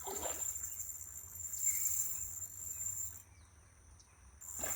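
Insects trilling, a steady high-pitched buzz that cuts out about three seconds in and starts again near the end.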